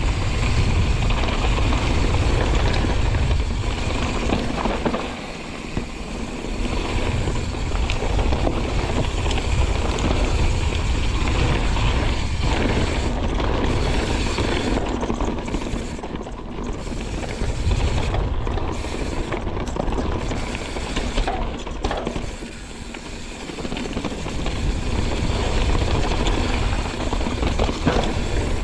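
Wind buffeting the on-bike camera's microphone as a mountain bike rolls fast down a dirt trail, with tyre roar and rattles and clicks from the bike. The rush eases off briefly twice.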